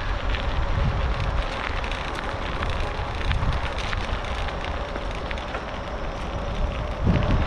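Bicycle tyres crunching and crackling over a gravel trail, with gusts of wind rumbling on the microphone.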